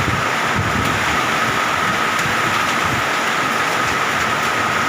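Heavy rain and strong wind of a summer hailstorm: a loud, steady roar, with a steady high tone running through it.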